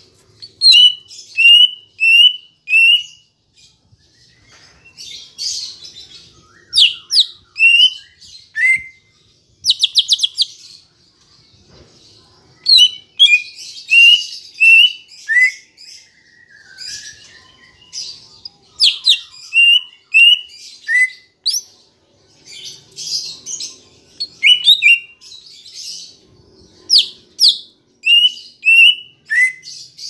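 Greater green leafbird (cucak ijo) singing a varied song: runs of three or four short slurred whistles, sharp high notes, and a fast trill about ten seconds in, the phrases coming in bursts with brief gaps between.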